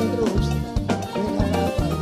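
Live R&B music from a vocal group and backing band: a steady drum-kit beat and bass line, with sung melody on top.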